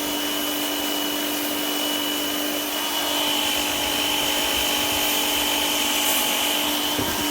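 DeWalt DCPW550B 20V cordless power cleaner running and spraying through its 25-degree tip: a steady whine over the hiss of the water jet. The spray is weak, "nothing" you couldn't put a hand in front of.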